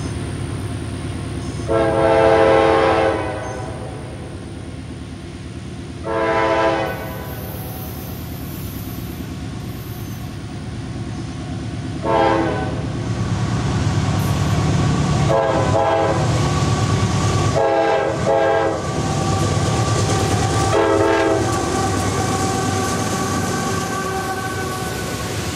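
CSX diesel locomotives' multi-chime horn sounding for a grade crossing, about six blasts with the first and longest near the start, over the low rumble of the diesel engines, which grows louder as the locomotives come up and pass. After them come the steady rolling and rail clatter of the hopper cars.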